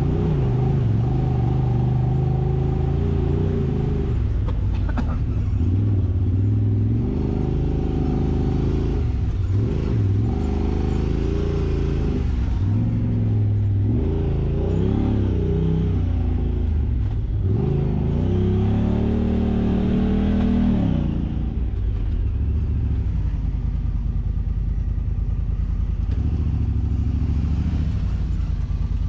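Side-by-side UTV engine revving up and down again and again under changing throttle, then running steadier and lower for the last several seconds.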